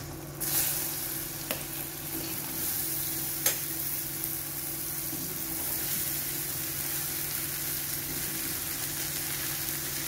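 Chopped sponge gourd tipped into hot tempering oil in an aluminium kadhai: a burst of sizzling about half a second in that settles into steady sizzling. Two sharp clicks sound, about one and a half and three and a half seconds in.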